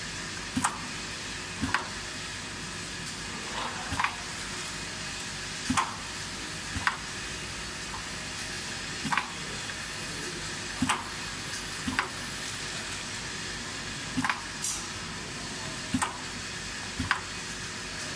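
Stick lip balm filling and capping machine running: a steady hiss under sharp clacks of its pneumatic actuators, often two about a second apart, repeating every few seconds as containers are indexed along the conveyor.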